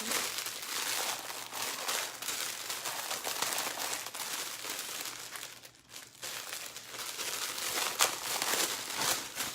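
Crinkling of a plastic adhesive stencil transfer sheet being handled and rubbed, with a short pause about six seconds in.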